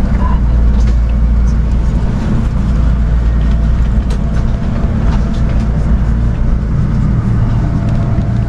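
Steady low rumble and hum inside a Shinkansen bullet-train carriage, with a few faint clicks.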